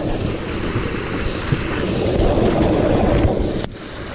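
Rushing river water with wind buffeting the microphone; the noise drops about three and a half seconds in, with a sharp click just after.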